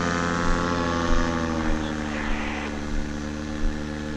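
Paramotor engine and propeller droning overhead in flight, a steady pitched hum whose pitch sags slightly in the first second or so before holding level.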